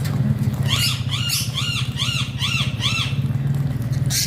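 Alexandrine parakeet giving a quick series of about six harsh screeching calls, roughly two a second, each rising and falling in pitch. A steady low hum runs underneath, and a sharp click comes near the end.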